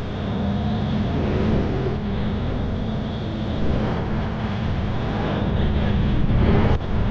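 Fairground thrill ride running, heard from on board: a steady low mechanical hum under a rushing noise.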